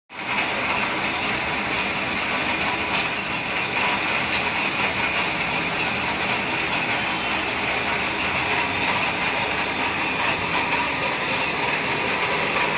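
Metal lathe running, turning a long steel paper-mill shaft, with a steady mechanical whir and rattle and a faint steady whine. Two brief light clicks come about three and four seconds in.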